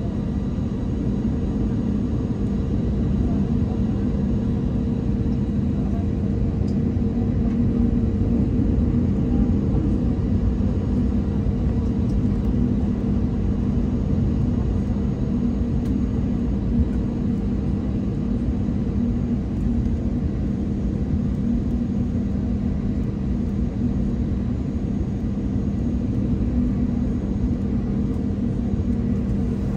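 Steady airliner cabin noise while taxiing: a low rumble from the engines and the rolling aircraft, with a constant hum.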